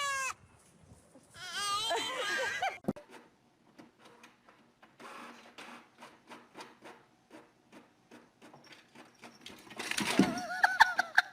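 An animal's wavering, bleat-like calls: a short one at the start and a longer quavering one about a second in. Faint ticking follows, then near the end a short pitched sound with a shake in it.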